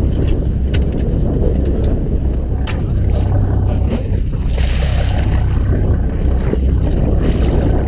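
Fishing boat's engine running steadily under wind and sea noise, with a few sharp knocks on deck and a brief rush of water or spray near the middle.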